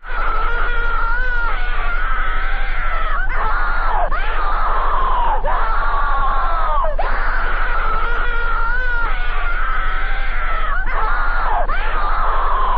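Loud, distorted scream-like wailing that never breaks, its pitch wavering and repeatedly sweeping sharply downward every second or two.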